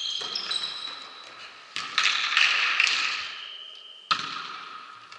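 Volleyball rally in a reverberant sports hall: several sharp slaps of hands and arms striking the ball, two of them in quick succession a little under two seconds in and the last about four seconds in, with high squeaks of sneakers on the court floor between them.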